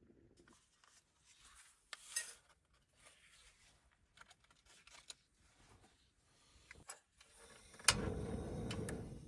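Objects being handled: rubbing and small clicks and clatters. Near the end a sharp click starts a louder rushing noise that lasts about a second.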